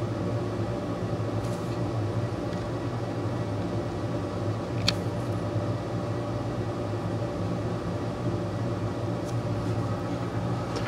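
Steady mechanical hum with one light click about five seconds in.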